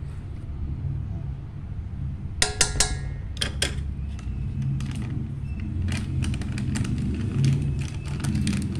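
Kitchen handling sounds over a steady low rumble: a few sharp clinks with a brief metallic ring about two and a half to three and a half seconds in, as a spoon and bag of baking powder knock against a stainless steel pot, then lighter scattered clicks and rustles near the end.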